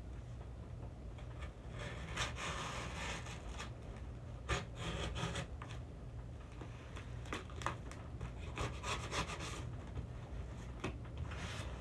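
Knife cutting the packing tape on a cardboard box, with cardboard scraping and rubbing under the hands in irregular strokes and a few small knocks.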